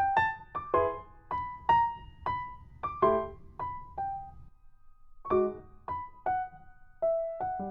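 Background piano music: a gentle melody of single struck notes, about two a second, with a brief pause about halfway through.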